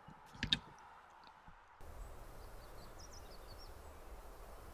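Quiet outdoor ambience: a brief click about half a second in, then a steady low rumble with a few faint, short bird chirps.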